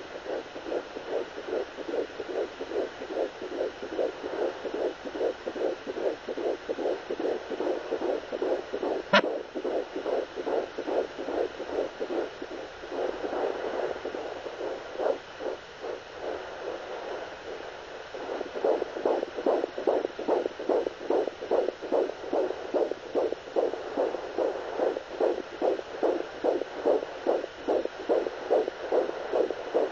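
Fetal heartbeat heard through a Doppler monitor: a rapid, even pulse of about three beats a second. There is a sharp click about nine seconds in, and the beats blur and weaken for a few seconds midway before coming back strong.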